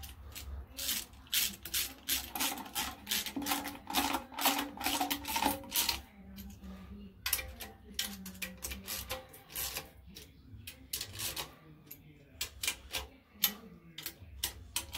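Hand ratchet clicking in quick runs as it tightens the bolts of an engine's timing cover, with short pauses between runs.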